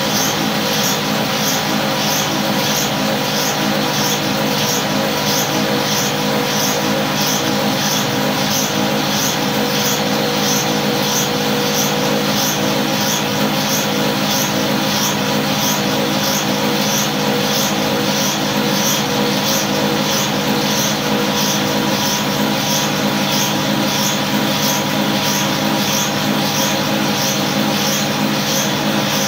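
Cotton candy machine running steadily, its spinning head and motor giving a loud, even whine with a regular pulsing about twice a second.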